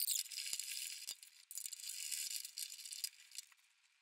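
Rusty steel taillight bracket on an old truck bed rattling and scraping as it is worked back and forth by gloved hands, with a few sharp metallic clicks.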